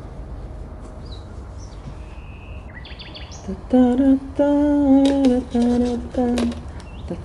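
A woman humming a slow tune in held notes, starting about four seconds in; a few faint bird chirps come before it.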